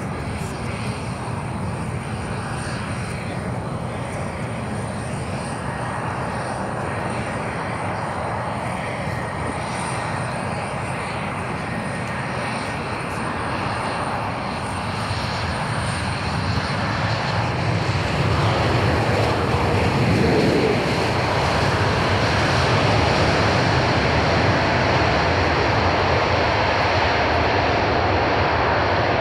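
Airbus A321XLR airliner's twin jet engines on a landing approach, a steady jet roar that grows louder about two-thirds of the way through as the aircraft touches down and rolls out on the runway.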